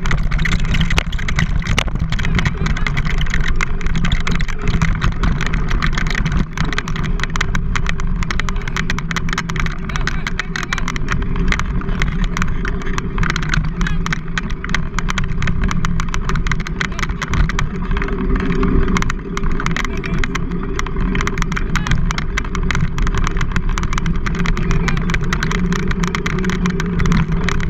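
Wheels rolling over a dirt track on a dog-drawn rig, with steady wind buffeting on the camera's microphone and a constant fine rattle of clicks.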